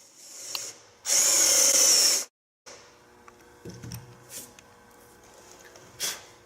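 Power drill boring a shallow hole in a wooden newel post with a 5/8-inch spade bit, running loudly for about a second and then stopping abruptly. Quieter clicks and handling noises follow.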